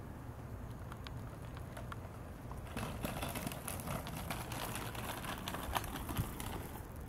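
A Corgi and her dog wheelchair moving over a concrete path: a patter of small clicks and scuffs from paws and small wheels that starts about three seconds in, over a low steady rumble.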